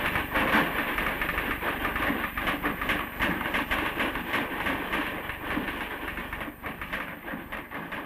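Fast typing on an electric typewriter: a dense, continuous clatter of key strikes that grows gradually quieter toward the end.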